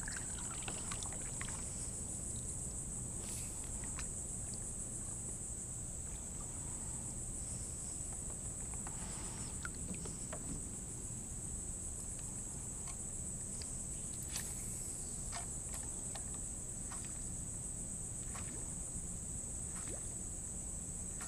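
Steady high-pitched insect buzz, with scattered light knocks and clicks from the kayak and paddle being handled.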